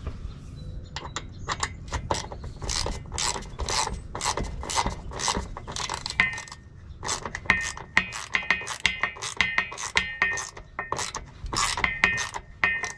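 Hand wrench worked in quick repeated strokes, clicking, as it drives a 3/8-inch self-tapping bolt that cuts its own threads into the Jeep Cherokee XJ's frame. From about six seconds in, many strokes carry a high metallic squeal.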